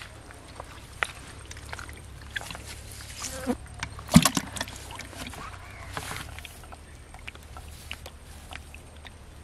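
Live fish being handled in a plastic bucket: scattered knocks and slaps as they flap and hit its sides and are dropped back in, with the loudest knock a little after four seconds in.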